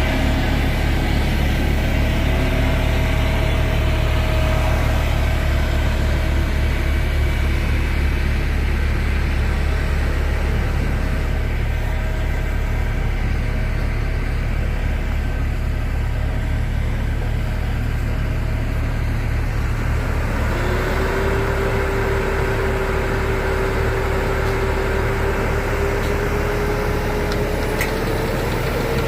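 Heavy construction machine engine running steadily with a fast low pulsing, joined about two-thirds through by a whine that slowly rises in pitch.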